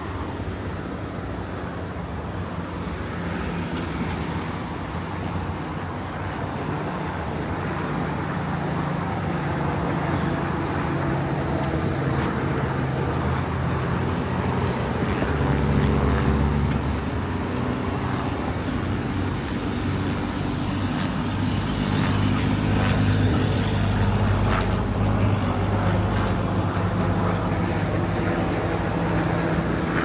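Road traffic: motor vehicles passing close by, their engine hum rising and falling, loudest about halfway through and again about three-quarters of the way through.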